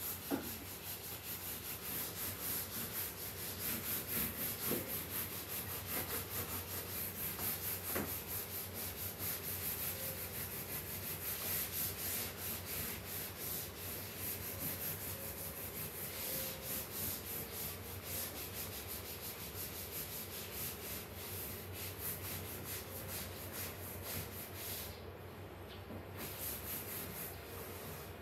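Hard scrubbing by hand: a surface rubbed in quick, even back-and-forth strokes, a scratchy rubbing that pauses briefly near the end.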